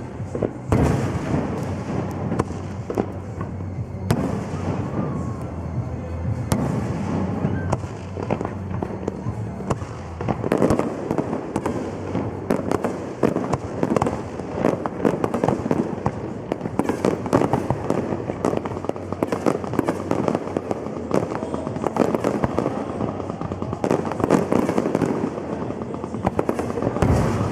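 Fireworks display going off continuously: a dense run of bangs and crackling, growing thicker and busier about ten seconds in.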